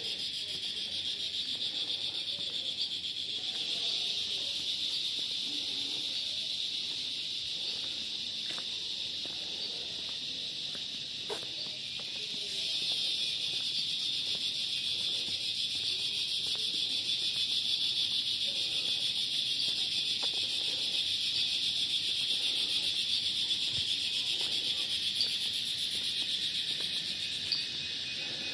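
Evening chorus of insects: a dense, steady, high-pitched buzz that grows a little louder about halfway through.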